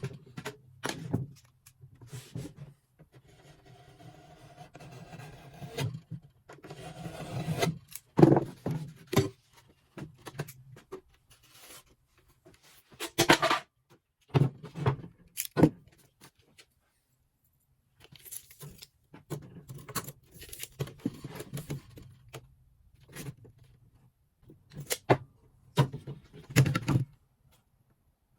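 Knocks, clatters and scraping of hand work on drywall, in short separate bursts with brief pauses between them.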